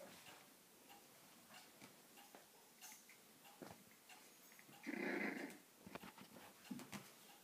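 A five-week-old puppy gives one short, loud call about five seconds in, and a fainter one near the end.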